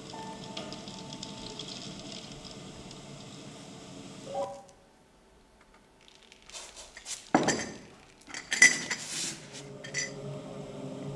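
Hard objects, glass or tableware, clinking and knocking as they are handled on a wooden table: a run of sharp clinks over about three seconds, two of them much louder. Before it, a steady background with held tones cuts off about four seconds in.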